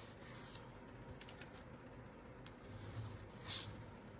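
Faint rubbing of hands pressing and smoothing paper flat, with a few light ticks. Near the end comes a short scrape as a bone folder runs along the paper's edge.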